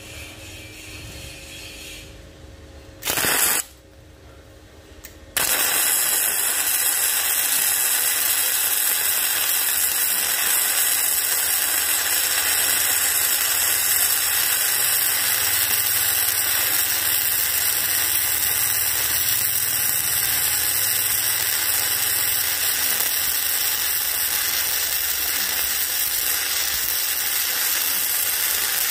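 Proteck 250 MIG welder running gasless flux-core wire, set at 19 V and 100 A, arc welding a thick steel angle. A short arc strike about three seconds in, then the arc burns as a loud, steady crackling hiss from about five seconds in.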